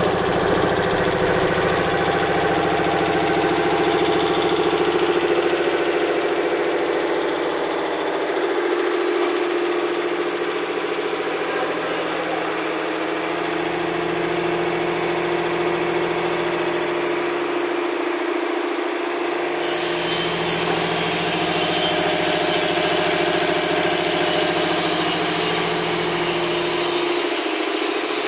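High-pressure piston air compressor running steadily, a constant mechanical hum.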